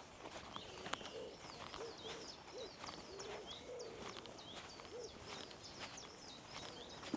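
Outdoor birdsong: many small birds chirping high and fast, over a low call repeated several times in the first five seconds, with faint footsteps on a path.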